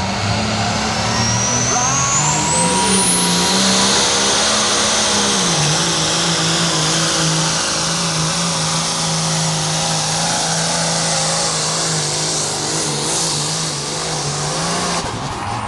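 Cummins turbo-diesel in a Dodge pickup under full load pulling a sled: a high whistle climbs over the first three seconds as the turbo spools, then the engine holds a steady, heavy note, dropping in pitch once about five seconds in, until it lets off near the end.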